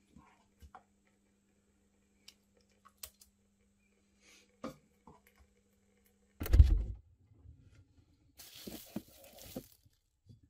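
Light clicks and taps of a metal spoon against a stainless mesh sieve and frying pan as cooked beef mince is pressed to drain. A single loud thud about six and a half seconds in, then cling film rustling for a second or so as a wrapped ball of pastry is handled.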